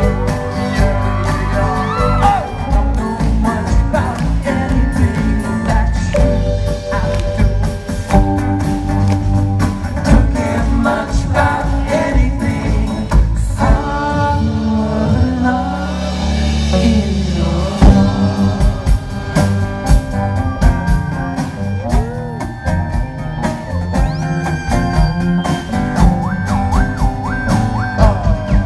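A live band playing a song, with a drum kit keeping the beat and singing over the instruments in parts.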